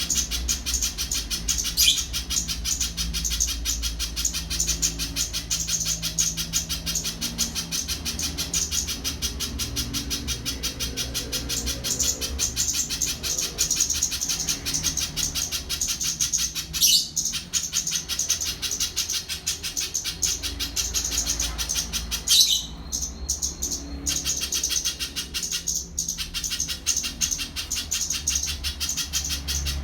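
Spiderhunter (pijantung) singing a fast, unbroken chattering trill of many high notes a second, pausing briefly twice about two-thirds of the way through. A steady low hum runs underneath.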